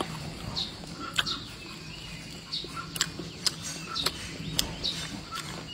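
Close-up eating sounds, chewing and sharp mouth and chopstick clicks, while a bird chirps over and over in the background, a short falling chirp about once a second.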